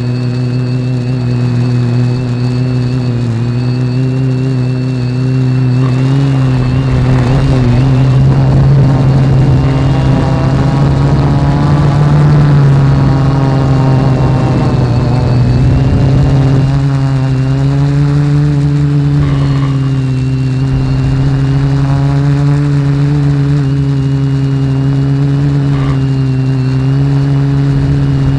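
Reptile Aphid X450 quadcopter's electric motors and propellers humming steadily, picked up up close by the action camera riding on the drone. The pitch wavers slightly as the motors speed up and slow down, and from about six to sixteen seconds in it gets a little louder with an added rushing noise.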